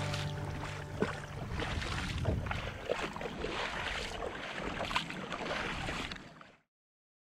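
Water splashing and trickling against the hull of a moving Old Town Predator fishing kayak, in small irregular splashes. It fades out about six and a half seconds in.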